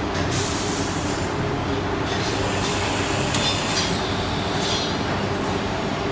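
CNC machine running with a steady mechanical hum. Several short, high-pitched hissing whines sound over it.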